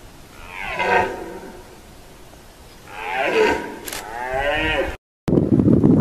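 Red deer stag roaring in the rut: one call about half a second in and a longer run of calls from about three seconds in, each falling in pitch. About five seconds in the sound cuts off and gives way to steady wind noise on the microphone.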